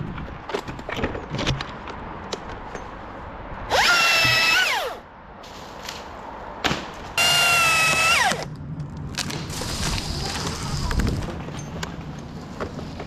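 A power tool runs in two short bursts of about a second each; each time its whine rises as it spins up, holds, then falls away. Short knocks come before and between the bursts.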